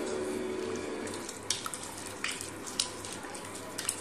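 Wooden spoon stirring a thin, watery curry in a metal pot: the liquid sloshes steadily, with a few light clicks of the spoon against the pot.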